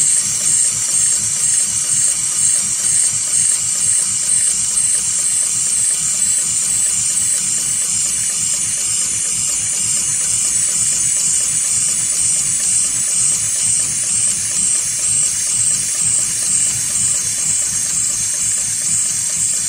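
HighTex 71008R automatic rope-sewing machine running, its needle stitching through a climbing rope at speed: a steady, rapid mechanical clatter with a constant hiss.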